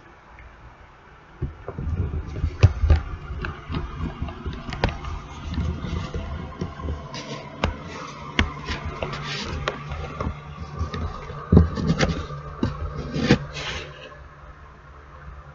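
Irregular clicks, knocks and scraping over a low rumble, starting about a second and a half in and dying down near the end: someone moving about and handling things in a cramped, cluttered room. A faint steady low hum runs underneath.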